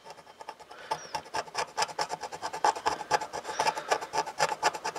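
Tip of a small flathead screwdriver scraping the enamel coating off a copper trace on a circuit board, in rapid short strokes: a scratchy rasp that grows louder after the first second.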